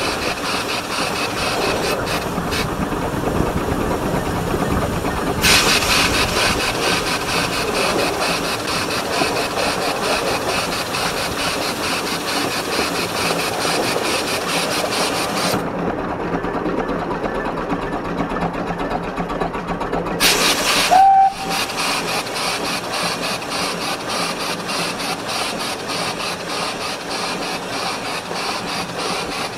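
Mariloo, a 12.25-inch gauge steam locomotive, running with steady rapid exhaust beats and hissing steam, the hiss cutting out for a few seconds partway through. About two-thirds of the way in, a loud rush of steam ends in a brief whistle toot.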